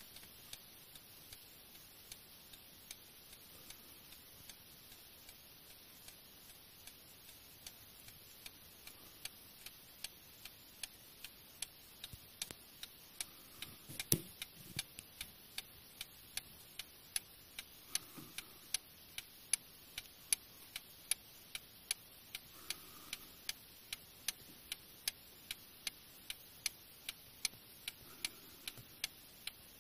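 Antique French Paris clock movement by Vincenti, with a front-mounted escapement, ticking steadily about twice a second as its pendulum swings, running evenly and in working order. The ticks grow louder partway through, and a dull knock sounds about halfway.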